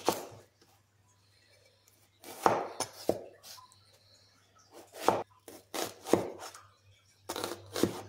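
A cleaver cuts through an onion and knocks against a wooden cutting board, making about eight separate, irregularly spaced knocks. The first knock comes at the start and is followed by a pause of about two seconds.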